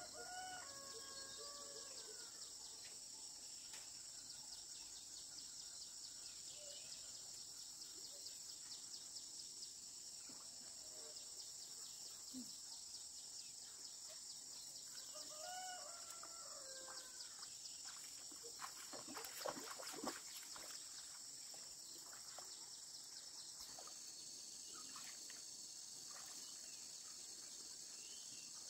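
A rooster crowing twice, faintly, once at the start and again about halfway through, over a steady high chorus of crickets. A few sharp knocks about twenty seconds in are the loudest sounds.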